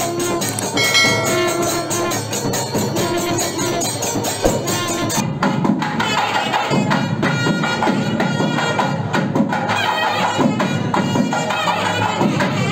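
Devotional music with held tones over fast, even percussion. About five seconds in it cuts abruptly to a different recording, where wavering voices carry on over the percussion.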